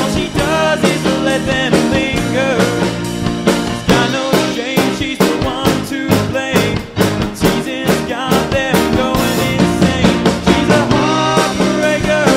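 Rock band playing: electric guitar, bass guitar, keyboard and a drum kit, with the drums keeping a steady beat.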